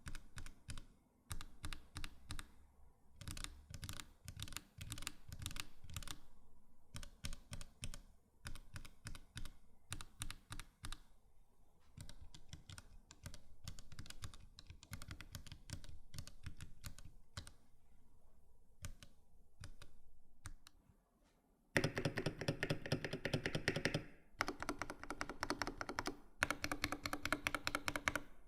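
Gateron Box CJ linear mechanical switches typed on in a Keychron K8 Pro keyboard: bursts of rapid keystroke clicks with short pauses. After a brief quiet gap, the last part is louder, faster typing.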